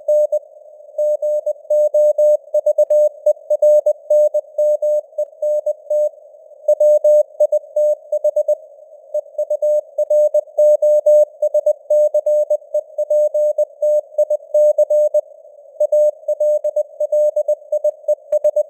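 Morse code at 20 words per minute: a single steady mid-pitched tone keyed on and off in dots and dashes, with short pauses between letters and words, over a narrow band of simulated radio noise hiss. The signal strength is simulated as varying, like fading (QSB) on a radio band.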